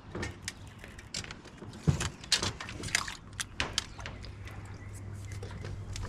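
Irregular knocks and clicks of hard objects being handled, most of them in the first four seconds, over a steady low hum.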